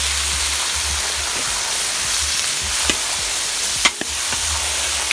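Chopped duck meat with garlic and ginger sizzling in hot oil in a large wok, stirred with a spatula that knocks and scrapes against the pan a few times in the second half.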